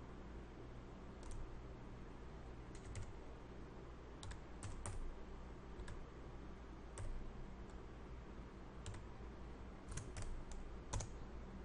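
Computer keyboard typing: about fourteen separate keystrokes at an uneven pace, with a few quick clusters, over a faint steady low hum.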